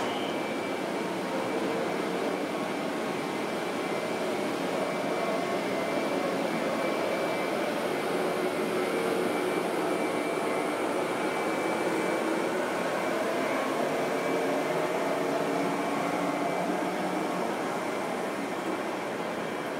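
Electric commuter trains at a station platform: a steady rumble with faint tones that slowly rise and fall.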